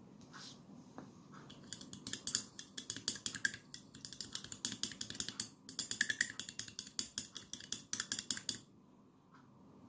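Long metal spoon stirring sugar into a stemmed glass of butterfly pea flower tea, clinking quickly and repeatedly against the glass. The clinking starts about two seconds in, breaks off briefly midway, and stops a little before the end.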